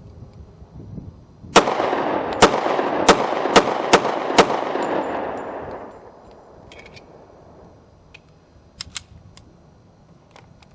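Ruger SR-1911 Commander .45 ACP pistol fired six times in quick succession over about three seconds. Each shot is followed by a long echo that dies away about a second and a half after the last one. A few faint clicks follow near the end.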